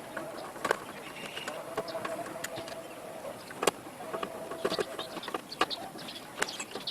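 Scattered light clicks and knocks at irregular intervals, over a faint steady tone that comes and goes.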